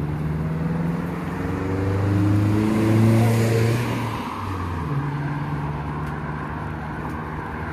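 Cars passing on the road: engine hum and tyre noise swelling to a peak about three seconds in, then settling to a steadier engine hum.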